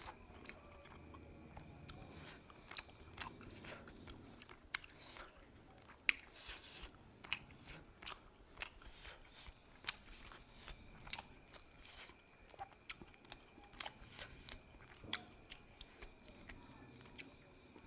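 Close-up eating sounds: a person chewing and biting food, with sharp wet clicks and crunches coming irregularly, about one or two a second.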